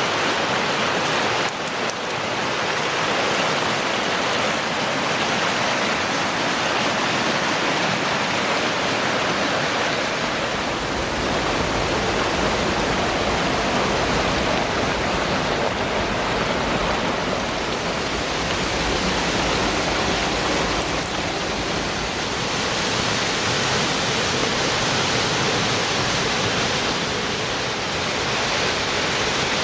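Waterfall rushing: a steady, loud wash of falling water, with its low rumble growing stronger about ten seconds in.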